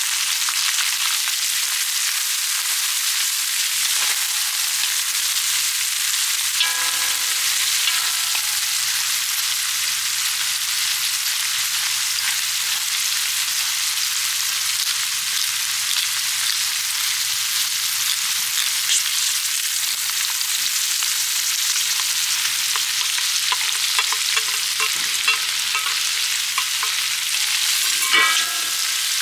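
Food frying with a steady sizzle on a cast-iron cauldron-lid griddle (sotttukkeong).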